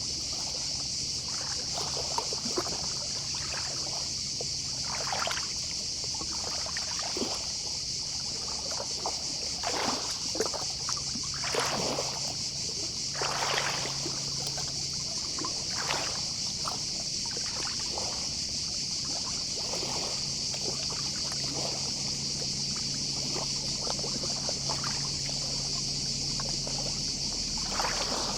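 Small, gentle sea waves lapping at the shore in irregular soft splashes, over a steady high-pitched chorus of distant cicadas.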